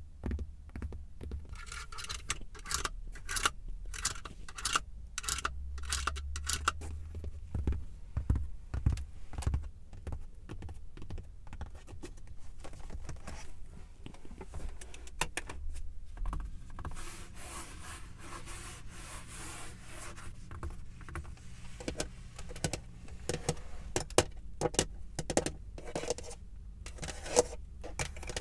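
ASMR tapping and scratching on a car's surfaces: many quick light taps and clicks, with a stretch of denser scraping and rubbing from about halfway through.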